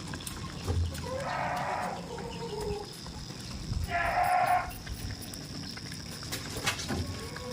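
Goat bleating twice, two drawn-out calls about three seconds apart, the second louder.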